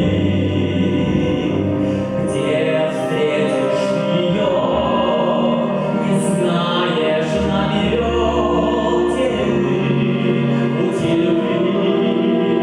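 A man singing an operetta song in held, lyrical notes over orchestral accompaniment.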